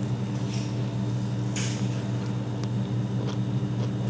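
Steady low mechanical hum of room machinery, with a few brief light scrapes of forks on plates.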